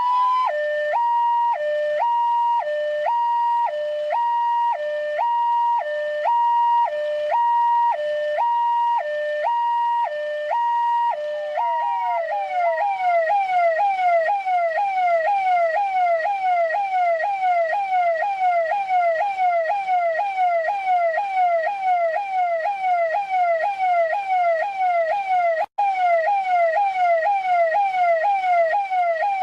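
Electronic police siren in a hi-lo mode, switching between a higher and a lower tone about once a second. About twelve seconds in it changes to a fast yelp, a falling sweep repeated several times a second.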